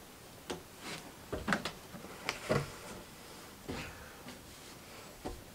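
A few scattered light knocks and clatters, about eight in five seconds, irregularly spaced.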